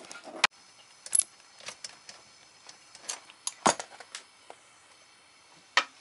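Scattered sharp metallic clicks and clinks of hand tools and copper tubing being handled during work on a refrigerator compressor, about eight in all, the loudest about half a second in, at about a second, near four seconds and just before the end.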